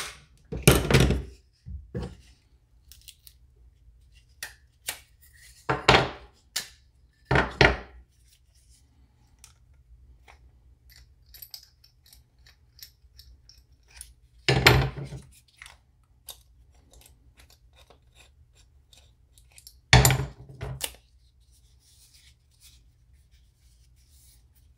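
One-handed bar clamps and a steel C-clamp being released and set down on a workbench, along with wooden clamping blocks. About five loud knocks and clatters are spread through, with small clicks and handling noise between them.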